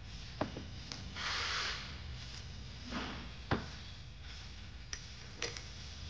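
Scattered light clicks and knocks of a hydraulic hose and its metal fitting being handled and set into a hose crimper's die, with a short rubbing hiss about a second in. The sharpest knock comes about three and a half seconds in.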